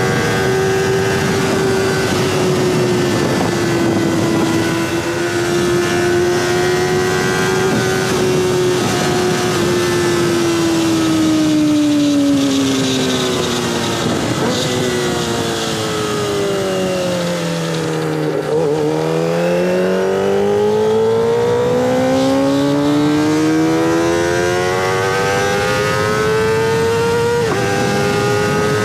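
Kawasaki ZX-25R's 249 cc inline-four engine running at high revs through an aftermarket DX Generation Sphere exhaust, its high steady note sinking slowly to its lowest about two-thirds of the way through, then climbing back up, with a sudden jump in pitch near the end.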